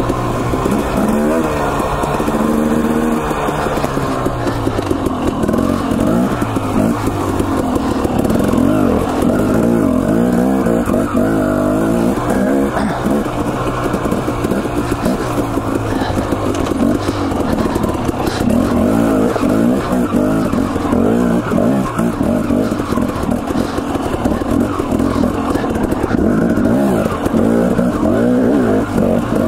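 Husqvarna TE250 two-stroke dirt bike engine under way, its pitch rising and falling constantly as the throttle opens and closes over rough single track.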